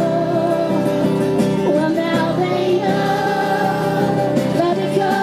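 A group of carolers singing a Christmas carol together, holding long notes.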